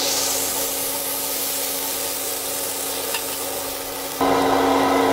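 Burger patty sizzling on a hot flat-top griddle, a steady frying hiss. About four seconds in, a louder steady machine-like hum cuts in abruptly.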